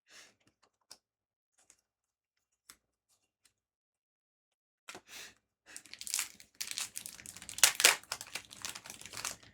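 A few faint taps, then about five seconds in, a foil trading-card booster pack crinkling and tearing open.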